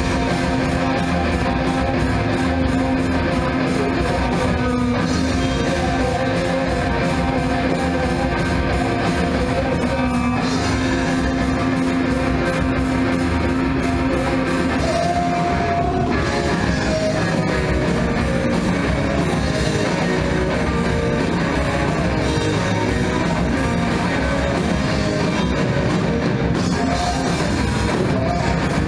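Live instrumental rock from a three-piece band: electric guitar, bass guitar and drum kit playing loud and steady.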